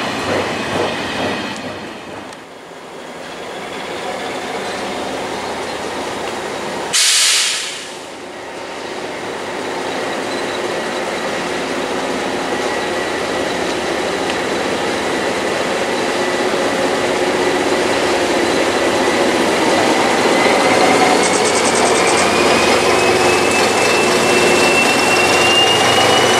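Freight wagons clatter past with a rhythmic clickety-clack in the first two seconds. About seven seconds in comes a brief loud hiss. Then an approaching SM42 diesel locomotive hauling hopper wagons grows steadily louder, with a high whine rising in pitch over the last several seconds.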